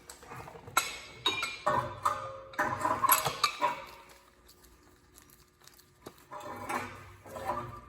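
Metal tools clinking and clanking as a C-clamp is picked up and handled: a run of sharp clanks in the first few seconds, a lull, then a few more near the end.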